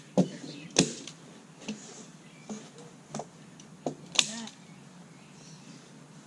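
Hand staple gun driving staples through fabric weed liner into the wooden sides of a raised bed: about six sharp clacks at uneven intervals, the loudest about a second in and about four seconds in.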